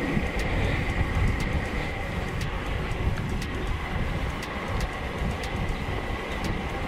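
Wind and tyre rumble from a road bike rolling along asphalt, picked up by a bike-mounted action camera, with a thin steady high whine and faint regular ticks about twice a second.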